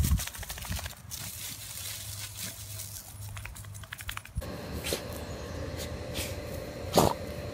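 Dry fallen leaves crackling and rustling under miniature schnauzers' paws. About four seconds in the sound changes to a steady hum, with one short, loud sound near the end.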